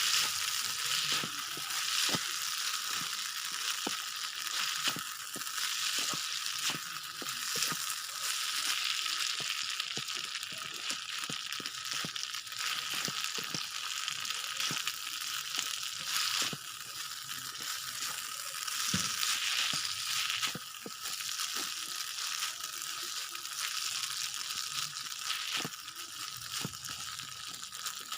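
Fried rice with sweet soy sauce sizzling in a pan while a spatula stirs it, with frequent quick scrapes and taps of the spatula against the pan.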